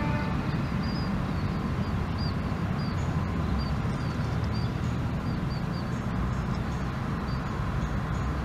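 Passenger train's carriages rolling away, a steady low rumble of the train on the track. Small birds give short high chirps over it every second or so.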